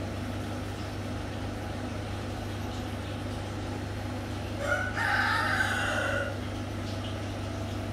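A rooster crows once, a call of about a second and a half a little past the middle, over a steady low hum.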